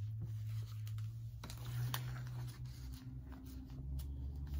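Thin Bible pages being leafed through, with faint paper rustles and soft clicks, over a steady low hum.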